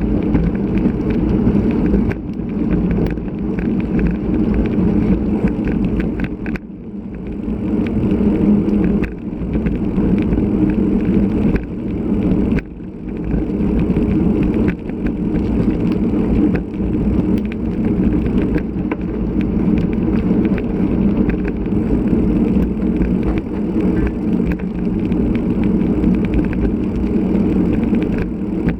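Steady, loud rumble of wind and road noise on a bicycle-mounted action camera while riding in gusty typhoon wind, dipping briefly now and then.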